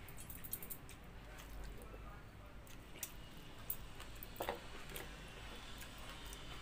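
Eating by hand: wet squishing of water-soaked rice (pakhala) in a steel bowl and chewing, with many small sharp clicks and one louder sound about four and a half seconds in.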